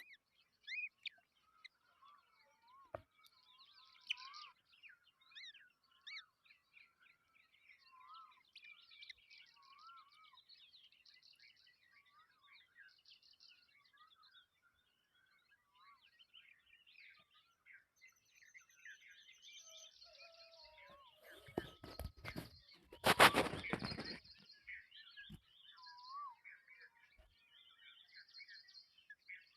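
Hatchling bird peeping and chirping over and over in short rising-and-falling calls and quick trills. About two-thirds of the way through comes a loud rustling scrape lasting about two seconds.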